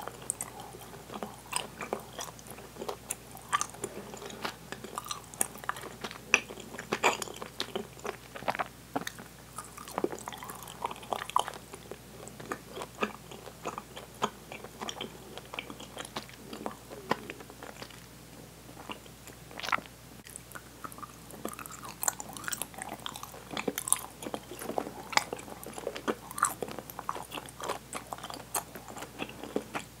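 Close-up open-mouthed chewing of sticky Swedish gummy candy: a steady run of wet, irregular clicking and smacking mouth sounds as the candy sticks to the teeth, with a short lull about halfway through.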